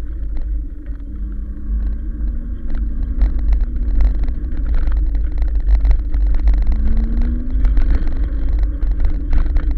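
Wind buffeting the microphone and rolling noise from an e-bike on a tarmac path: a steady low rumble with many small clicks and knocks from the bike rattling over the surface. A faint low whine rises in pitch twice, about a second in and again near seven seconds.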